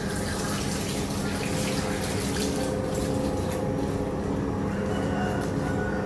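Kitchen tap running into a stainless steel sink while something is rinsed under it: a steady rush of water.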